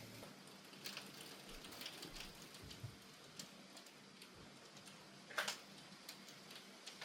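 Faint scattered taps and ticks over a low hiss, the loudest a little past the middle.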